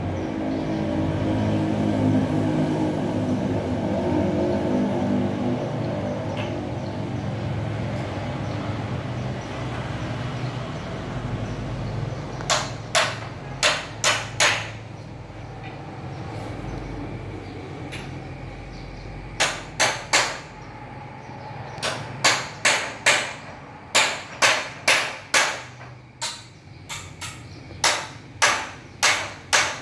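A low, steady rumble that fades over the first ten seconds or so. Then, from about twelve seconds in, several quick runs of sharp knocks at about two a second, like hammering, loudest of all.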